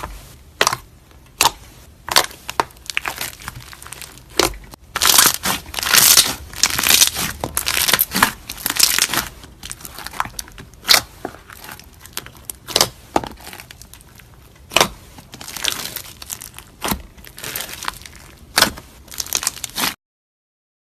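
Slime being squeezed and worked by hand, giving sharp pops and crinkly crackling. The crackling is densest about five to ten seconds in, and the sound stops suddenly about a second before the end.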